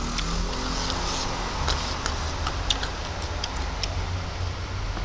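Eating sounds: scattered soft clicks of chewing and handling food with the fingers, over a steady low rumble.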